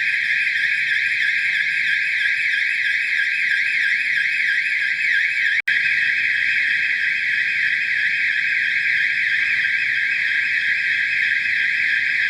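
Fire alarm sounder going off continuously during a system test: a loud, high-pitched, rapidly warbling tone, broken for an instant a little before the middle.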